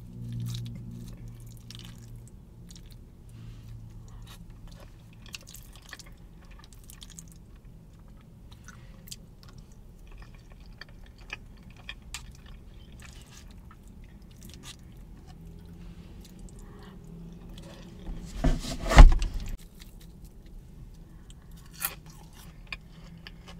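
Close-up chewing and mouth sounds of someone eating mac and cheese, with small scattered clicks of a fork in a paper bowl. A louder bump about nineteen seconds in.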